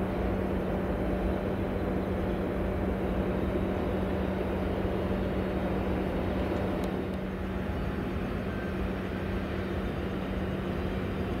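Steady low engine drone with a constant hum, unchanging throughout.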